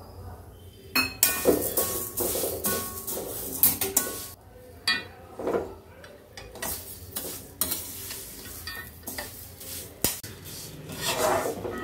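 Metal spatula stirring and turning vermicelli as it roasts in ghee in a kadai, scraping and clinking against the pan at irregular intervals, starting about a second in.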